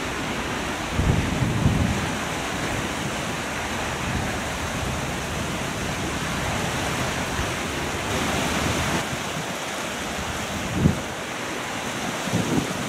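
Strong wind on the microphone: a steady rushing noise, with low gusts buffeting it about a second in and twice near the end.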